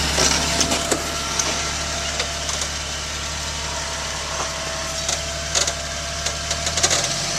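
Rock crawler's engine running at low revs as it climbs a boulder, a steady low drone whose note shifts about seven seconds in. Scattered sharp cracks and snaps come over it.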